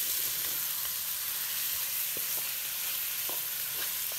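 Bone-in meat and sliced onions sizzling steadily in hot oil as the meat is browned with the onions, with a few faint taps of a wooden spatula stirring them.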